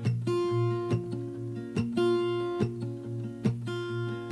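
Background music: a guitar playing a slow picked intro, a plucked chord or note about every second over a held low note.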